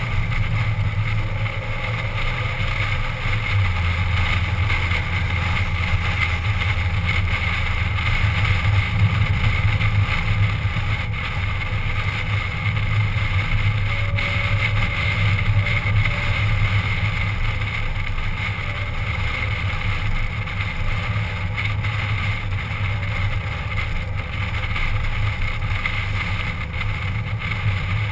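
Steady low car engine drone with tyre and road noise, heard from inside the car's cabin while cruising.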